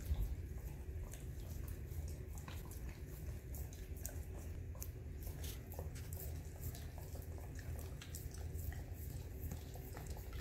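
A malamute and a husky licking at a spoon held out to them: a run of small, irregular wet licking clicks over a steady low hum.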